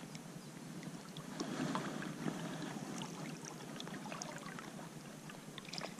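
Gentle splashing and lapping of river water at the bank, with many small scattered ticks and clicks, a little louder about one and a half seconds in.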